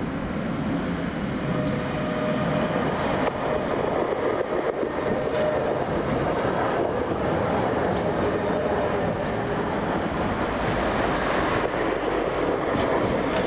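A low-floor Škoda tram running past close by: steady rolling noise of steel wheels on the rails with a faint electric motor whine. A Tatra T3 tram comes in behind it.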